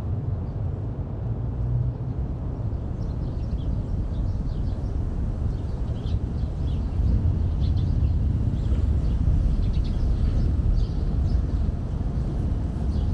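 Outdoor street ambience: a steady low rumble that grows a little louder about halfway through, with faint short high chirps scattered over it.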